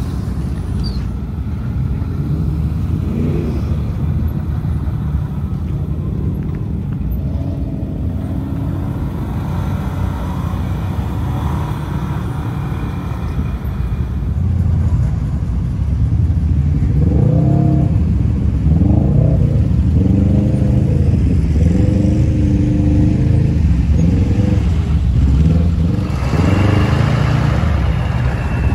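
Engines of lifted off-road trucks running at low speed with a steady low rumble. Around the middle it gets louder, and one engine revs up and down repeatedly for several seconds.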